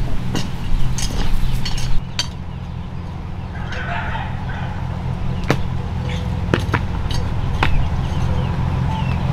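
Outdoor ambience: a steady low hum, with sharp clicks scattered through it and a few short bird chirps.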